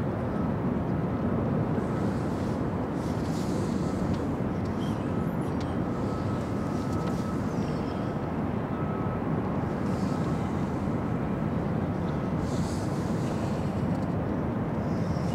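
Steady low rumble of a large cruise ship manoeuvring in port, carrying across the water, with a faint thin high whine coming and going.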